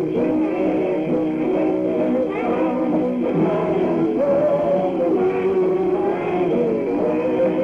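A family choir of parents and children singing a gospel song together, in held, changing notes, on a 1948 home disc recording that sounds muffled and thin, with no high treble.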